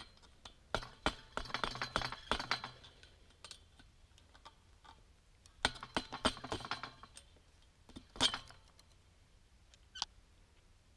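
Pliers working a steel wire clip off a steel fence post: quick runs of metal clicks, clinks and scraping in two bursts a few seconds apart, then a couple of single clicks near the end as the clip comes free.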